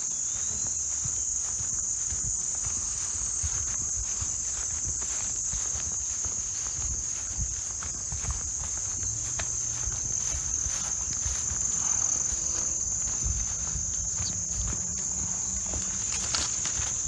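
A steady, high-pitched insect chorus, crickets trilling without a break, with the footsteps of someone walking underneath.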